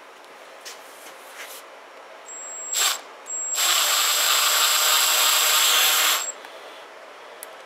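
Cordless drill turning a screw extractor (easy out) to back out a headless float-bowl screw on a GY6 scooter carburetor. A brief burst comes first, then a steady run of about three seconds with a high motor whine, stopping suddenly.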